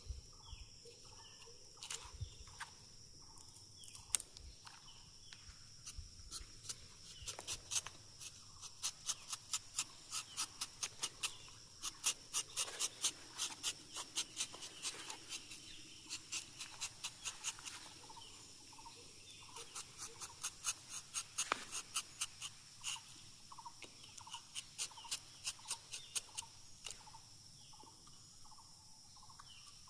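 Rubber-tapping knife cutting a rubber tree's bark: runs of sharp clicks, several a second, in bursts of a few seconds, over a steady high insect drone.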